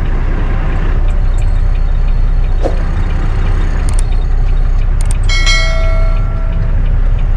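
Truck engine running steadily in the cab with a low rumble while the truck is manoeuvred in reverse. A click comes about four seconds in, then a single bell-like chime lasting just over a second from a subscribe-button animation.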